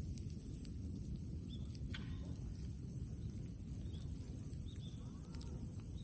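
A bonfire of brush wood burning with a low steady rumble and scattered faint crackles. Small birds chirp briefly now and then over it.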